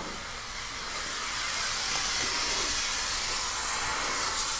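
Handheld garment steamer jetting steam with a steady hiss that builds slightly over the first second and then holds.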